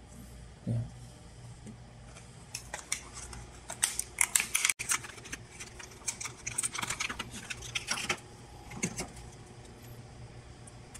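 Quick run of plastic clicks and rattles as an LED bulb is handled in its small clear plastic case, with a dull knock about a second in.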